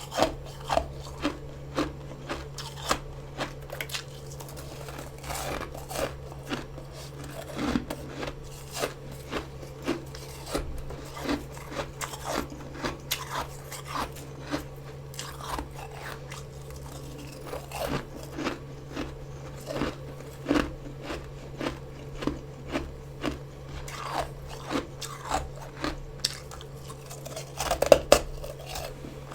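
Close-up crunching of mouthfuls of fresh freezer frost being chewed, a crisp crunch about every half second to second, with a louder flurry near the end. A steady low hum runs underneath.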